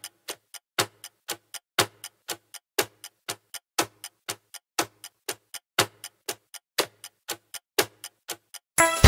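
Clock-style ticking of a quiz countdown-timer sound effect, about four ticks a second with a louder tick on each second. Music comes in just before the end.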